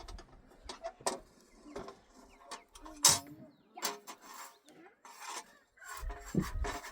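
Irregular knocks and scrapes, the loudest a sharp knock about three seconds in.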